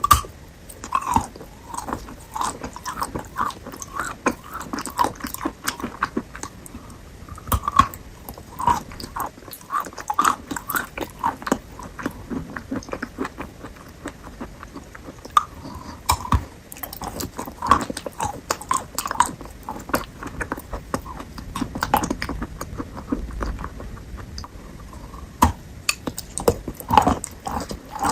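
Close-miked chewing and biting of fresh fruit: wet, crisp crunches coming irregularly, several a second, with brief lulls.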